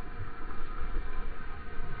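Muffled rush of water and wind rumble buffeting a camera mounted on the nose of a surfboard as it rides along a breaking wave.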